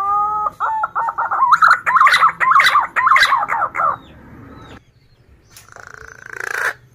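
Male punai daun (green pigeon) calling: a drawn-out note gliding upward, then a fast run of wavering whistled notes lasting about three seconds. A short rasping burst comes near the end.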